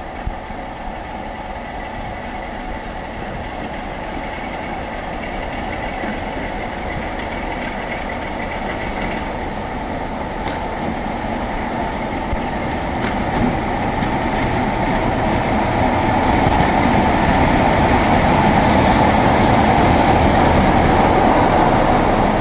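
BR Class 45 'Peak' diesel locomotive 45132, its Sulzer twin-bank twelve-cylinder engine running as it moves light during a run-round. It grows steadily louder as it approaches and passes beneath, loudest near the end.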